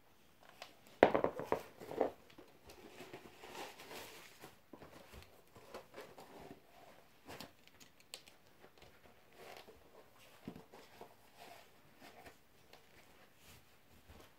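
Handling noise: a quick run of knocks and clatter about a second in, then faint rustling and occasional taps while football boots are handled and put on.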